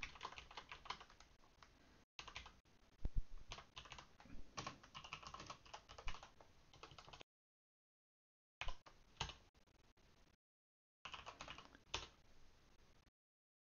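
Typing on a computer keyboard: irregular runs of key clicks in short bursts, with pauses that drop to dead silence.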